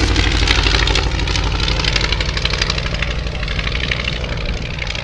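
Piston engine of a vintage propeller-driven trainer aircraft running with an even, rapid beat, growing gradually fainter.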